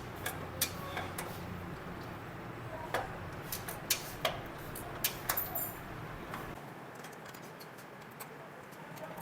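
Honda CD70 gear shift mechanism being worked by hand with the side cover off: irregular sharp clicks as gears are selected and the gear changer shaft and bolt turn.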